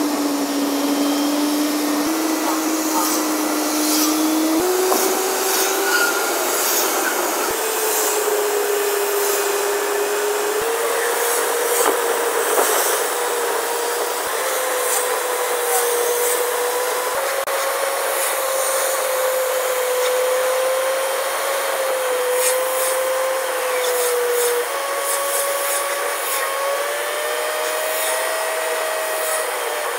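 A car being driven, heard from inside: steady road and wind noise under a whining drivetrain tone that climbs slowly in pitch as the car gathers speed, with faint ticks and rattles.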